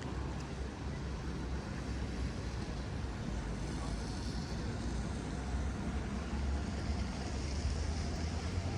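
City street traffic: a steady low rumble of vehicles passing, growing a little louder in the second half.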